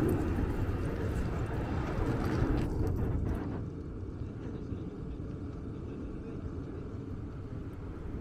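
Outdoor city street ambience: a steady low rumble, louder and brighter for the first three and a half seconds, then quieter and duller.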